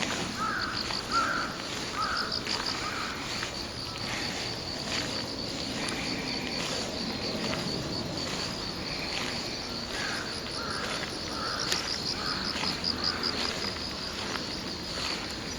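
Insects chirping steadily in fast pulsed trills, with crows cawing in two runs of several caws each, one at the start and one about two-thirds of the way through.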